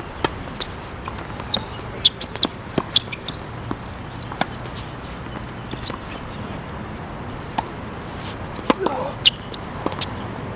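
Tennis rally on a hard court: a string of sharp pops from racket strikes and ball bounces, the first right at the start, with scuffing footsteps between them.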